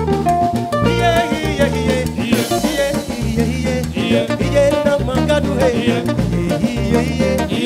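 Live band playing: drum kit, electric guitar and bass guitar, with voices singing over it.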